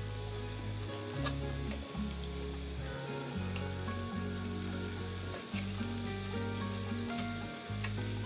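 Onion, sliced peppers and diced zucchini sizzling in oil in a frying pan, with a steady hiss and scattered faint ticks as the vegetable pieces go in. Background music plays underneath.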